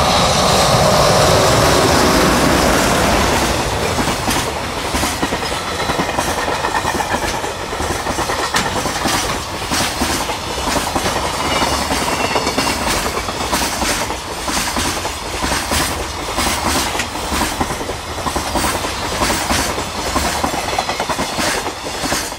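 EH500 electric locomotive passing close by, its whine falling in pitch over the first few seconds. Then comes the continuous clickety-clack of the container wagons' wheels over the rail joints as the freight train rolls past.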